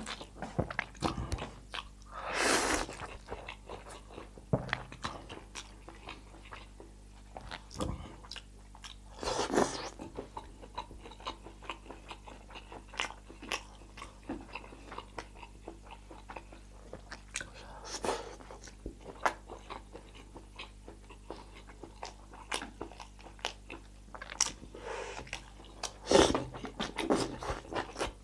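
Close-up eating of spicy instant noodles: steady chewing with many small wet clicks, and a louder noodle slurp four times, roughly every eight seconds.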